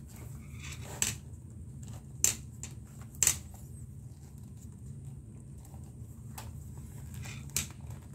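Leather lace being pulled through a baseball glove's web and the glove leather being handled: four short, sharp rustling clicks, the loudest two about two and three seconds in, over a steady low hum.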